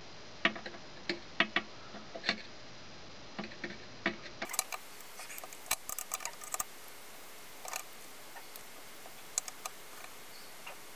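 Scattered light clicks and taps of small metal parts and tools being handled while an Edison phonograph spring motor is put back together, coming irregularly a few at a time.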